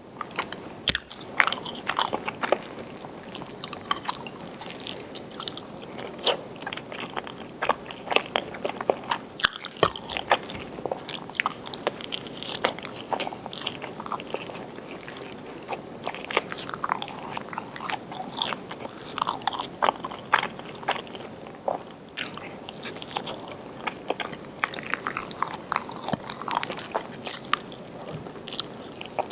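A person eating close to the microphone: steady chewing and biting with many short, crisp crunches at an irregular pace.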